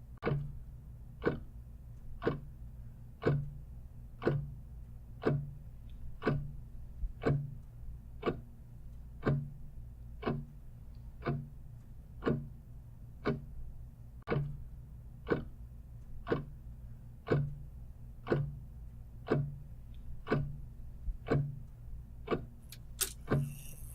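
Clock ticking steadily, about once a second, over a low steady hum. A few sharper, brighter clicks come near the end.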